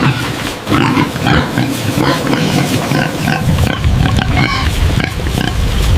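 A group of pigs calling together: a dense jumble of short low sounds with brief higher notes scattered through it.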